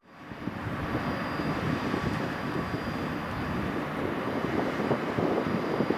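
Distant Ruschmeyer R90-230RG single-engine light aircraft droning on final approach, mixed with wind rumbling on the microphone; the sound fades in at the start and then holds steady.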